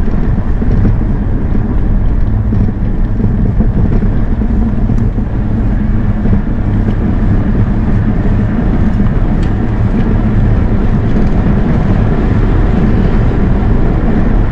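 Steady low rumble of wind buffeting the microphone of a moving vehicle, with road noise from the brick paving underneath.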